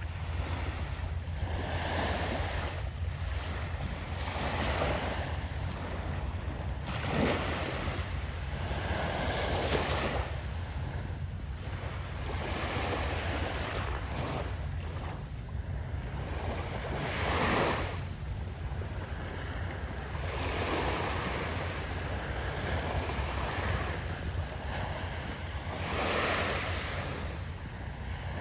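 Waves breaking and washing up a sandy beach, a swell of surf every few seconds with a few louder breakers, over a steady low rumble of wind on the microphone.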